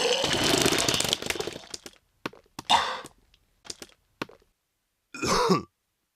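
A person vomiting: a loud retching gush fades out over the first two seconds. A few short wet spits and gags follow, then one more short retching heave near the end.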